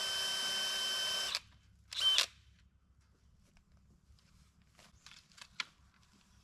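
DeWalt DCD996 20V brushless cordless drill running in regular drill mode into an ash trunk. It runs steadily for about a second and a half, stops, then gives a short second burst about two seconds in. In regular drill mode the bit was not going in.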